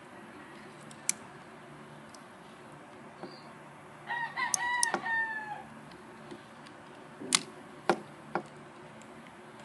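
A rooster crows once, about four seconds in, for roughly a second and a half. Several sharp clicks from handling a digital camera and its SD card slot come before and after the crow.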